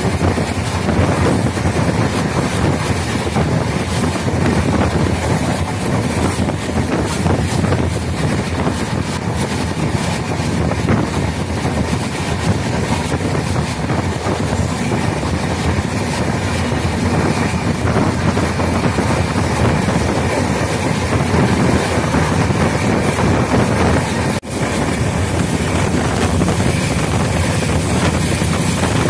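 Passenger train running at speed, heard from an open coach window: a steady loud rush of wheels on rail and running gear with wind buffeting the microphone. One brief dropout about three-quarters of the way through.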